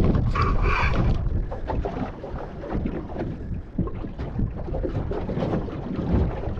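Wind buffeting the microphone in a low, steady rumble over water moving around a small boat. There is a brief rush of higher noise about half a second in.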